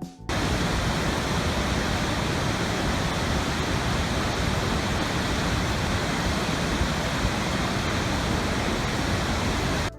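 Steady, loud rushing water, an even wash of noise with no distinct events, cutting in sharply just after the start and stopping abruptly near the end.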